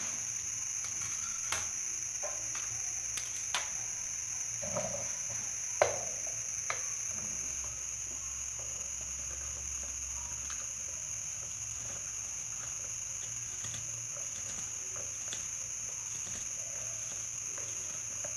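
A few light clicks and knocks, the loudest about six seconds in, over a steady high-pitched hiss and a faint low hum.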